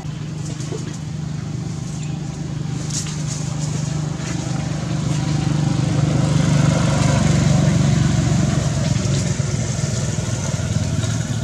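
A motor vehicle's engine drone, growing louder to a peak a little past halfway and then easing off, as it passes by.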